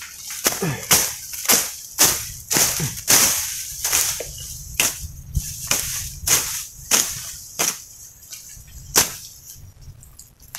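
Machete slashing through grass and undergrowth in quick repeated strokes, about two a second, each a sharp swish and cut. The strokes thin out after about eight seconds, with a last single stroke near the end.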